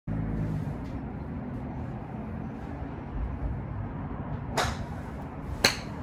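Wind buffeting the microphone, a brief swish about four and a half seconds in, then a sharp crack near the end as a golf club strikes a ball.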